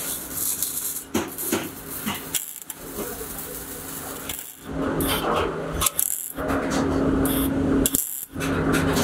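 MIG welding torch crackling as it welds a perforated steel muffler tube, with a steady low hum under it. The arc cuts out briefly about four times and restarts each time.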